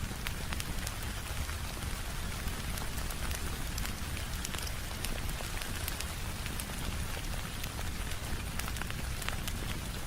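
Steady rain with a crackling fire mixed in: an even hiss over a low rumble, with many small sharp clicks and pops scattered through it.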